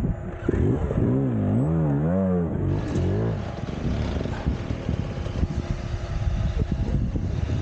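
A vehicle engine under load on a dirt track, its pitch rising and falling about three times in the first few seconds as the throttle works, then running on with a rough, steady rumble.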